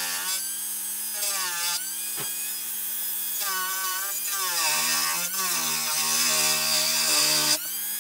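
Dremel rotary tool with a thin cutting wheel running at high speed and cutting into the wood of a guitar neck at the nut channel. Its whine sags and recovers in pitch several times as the wheel bites into the cut, over a steady hiss of cutting.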